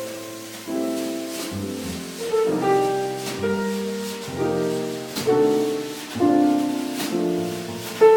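A small band playing live, led by chords struck about once a second, each one fading away before the next, over low bass notes.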